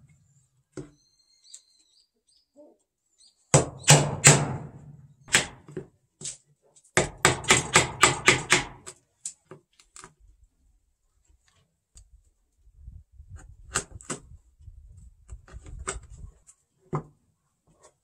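Claw hammer striking a chisel to chop out a mortise in a wooden slab: a few heavy blows, then a quick run of about four strikes a second, then scattered single taps.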